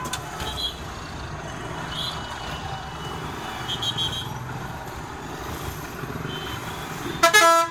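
Motorcycle and bus engines running in slow, congested street traffic, with a few faint short beeps. Near the end a loud vehicle horn sounds.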